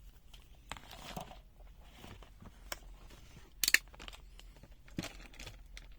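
Handling noise from the multimeter and its test probes: a few light clicks and taps, the loudest a double click a little past halfway, over faint rustling.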